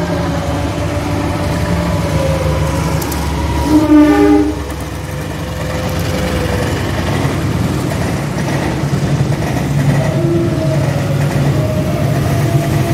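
Diesel-hauled passenger train running past on the rails, with a steady rumble of engine and wheels. A short, loud horn blast sounds about four seconds in.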